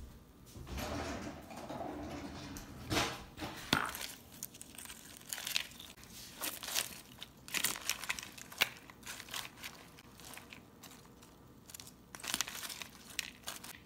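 Salad being tossed with tongs in a bowl: leaves rustling and crisp naan chips crackling and crunching, with irregular sharp clicks.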